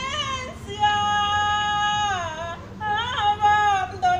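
A woman singing an alabao, the unaccompanied Afro-Colombian funeral chant, in long held high notes that slide downward at the end of each phrase.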